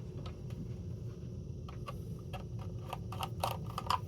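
Light scattered clicks and ticks of a small screwdriver working the tamper screw on a plastic fire-alarm horn strobe. The clicks come sparsely at first, then several close together near the end.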